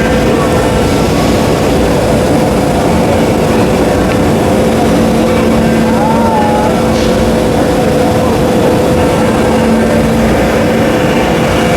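CNC router spindle running steadily during machining, a loud constant machine noise with a steady whine and a lower hum that comes and goes.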